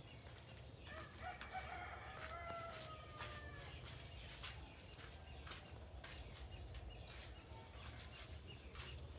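A rooster crowing once, about a second in, for roughly two seconds, amid scattered faint clicks.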